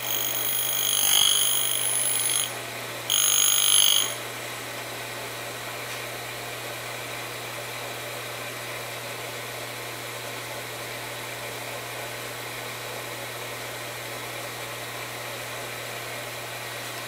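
Surface grinder wheel grinding the cutting face of a counterbore: two high-pitched whining bursts of grinding, the first about two and a half seconds long and the second about a second, over the steady hum of the grinder's running spindle motor.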